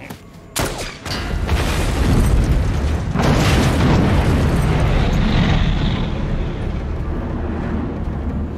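A sharp rifle shot, then propane gas cylinders exploding: a sudden blast about a second in, followed by a long, deep explosion noise that swells again about three seconds in and slowly fades.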